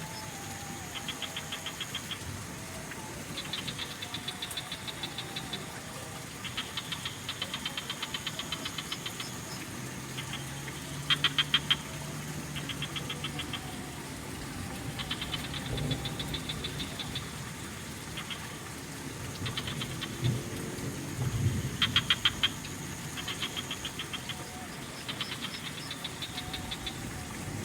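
Frogs calling in short, rapid rattling pulse trains of one to two seconds each, several overlapping and answering one another, over a steady haze of trickling water. A few low rumbles come in around the middle and toward the end.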